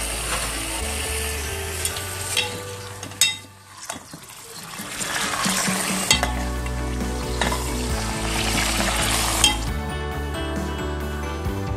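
Raw chicken pieces sizzling in hot oil with browned onions in a pot as they are stirred and sautéed with a spoon. The sizzling drops out briefly a few seconds in and thins near the end, leaving background music.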